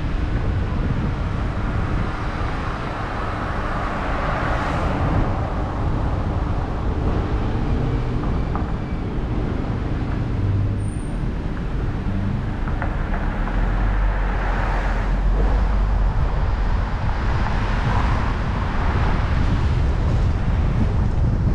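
Car driving slowly along a street in traffic: a steady low rumble of engine and tyres on the road that swells a little now and then.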